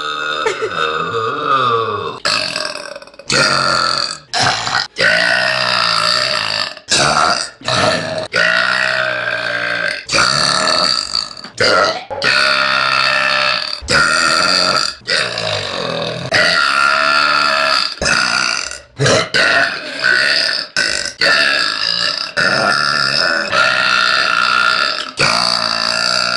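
A young woman burping, one burp after another: a long string of separate, drawn-out, pitched burps, many lasting a second or more, joined by abrupt cuts.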